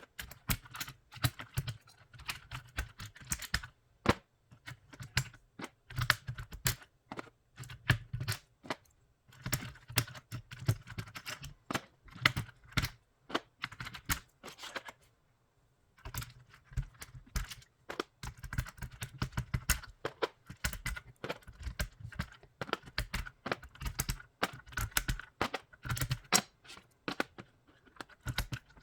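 Irregular clicking and clattering of a mechanical keyboard's plastic keycaps as they are pulled off the hot-swap switches with a keycap puller. There is a pause of about a second midway.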